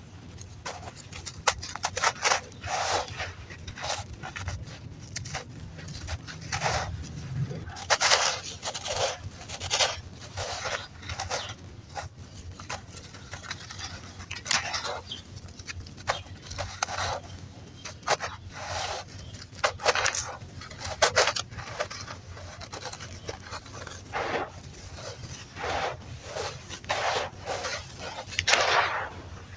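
Crunchy red sand being crunched in quick, uneven bursts of gritty crackling, some louder than others.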